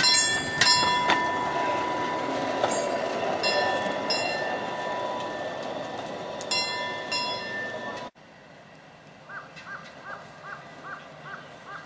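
Small steel wheels of a pedal-powered rail trolley rolling along old track: a steady rumble with a thin, steady squeal and a few sharp clicks. About eight seconds in it cuts to a much quieter stretch with a run of about seven short chirps.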